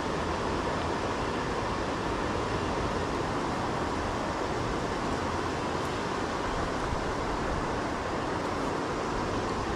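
Steady rushing of a river's current running over rocks and shallow riffles, an even wash of water noise.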